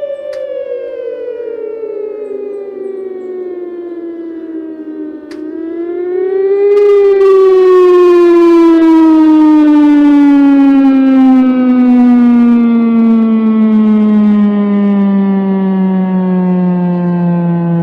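H.O.R Super Sirex siren winding down with a falling pitch. About five seconds in there is a click, and it briefly rises in pitch and gets louder. It then winds down slowly again to a low tone.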